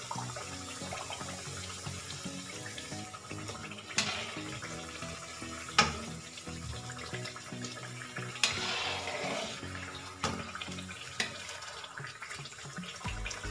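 Puris deep-frying in hot oil in a steel kadhai, with a steady sizzle and bubbling. A slotted steel spoon clinks against the pan about five times as the puris are turned and pressed, and the sizzle swells briefly just past the middle.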